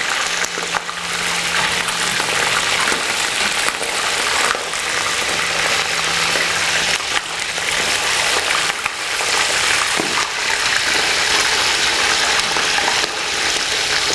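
Chicken leg quarters deep-frying in hot oil in a deep stainless stockpot: a steady, loud sizzle with the oil spitting, which the cook puts down to a little water left on the parboiled chicken. A few light clicks come from tongs against the pot.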